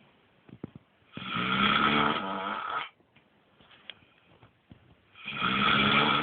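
Snoring: two long, loud snores, the first about a second in and the second about five seconds in, with quiet breathing between them.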